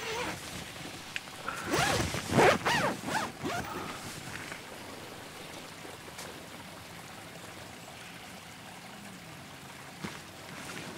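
Nylon tent door zip pulled open in a few quick runs about two seconds in, over the steady rush of a river.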